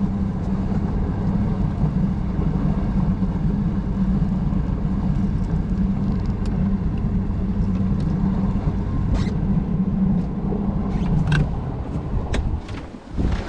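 Boat's outboard motor running steadily at speed, then throttling back near the end.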